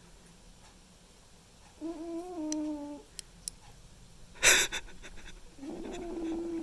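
Domestic cat snoring in its sleep: two pitched snores with a steady tone, each about a second long, one about two seconds in and one at the end. Between them comes a short, loud noisy burst, the loudest sound.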